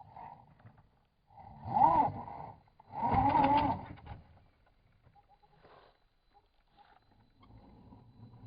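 Electric motor and gear drivetrain of a scale RC rock crawler whining in two short bursts of throttle, about two and three seconds in, its pitch rising and falling with the throttle.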